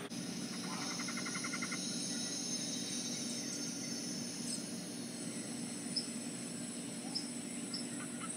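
Outdoor insect chorus: a steady high-pitched buzzing, with a quick run of rapid chirps about a second in and a few short bird-like chirps later on.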